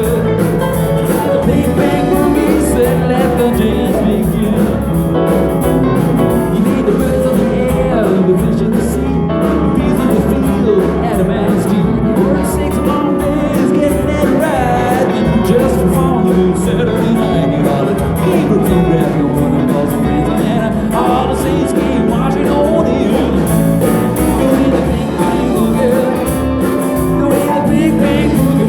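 Live band playing a country-rock song.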